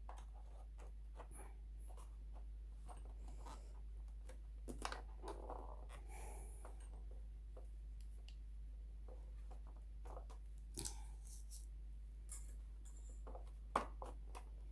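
Scattered light clicks and taps, with a brief scrape, from hands handling the plastic housing parts of a Husqvarna Viking Designer 1 sewing machine being disassembled, over a faint steady low hum.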